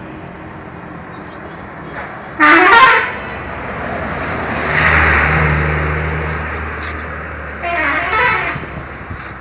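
Subur Jaya buses' telolet horns, multi-tone musical horns, playing short warbling tunes twice, about five seconds apart. The first blast is the loudest. Between the blasts a bus passes with its engine and tyres, swelling and then fading.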